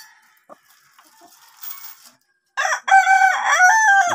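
A rooster crowing once: one long call of about a second and a half that starts a little past halfway, after faint scattered ticks and rustles.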